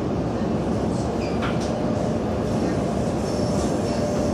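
Sydney Trains double-deck electric suburban train running past, a steady rumble of wheels on rail, with a faint steady whine coming in about three seconds in.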